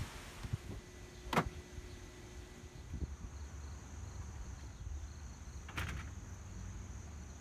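Outdoor ambience: a steady low rumble with insects chirping, joined by a steady high-pitched insect tone in the second half. Two brief sharp sounds break through, one about a second in and one near the end.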